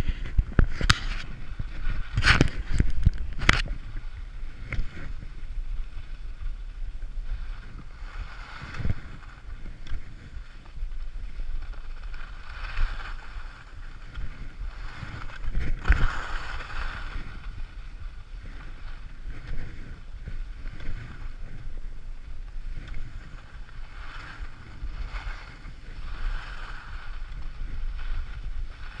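Skis sliding and turning through snow, a swishing that swells every few seconds with each turn, under wind buffeting the body-mounted camera's microphone. A few sharp knocks in the first few seconds.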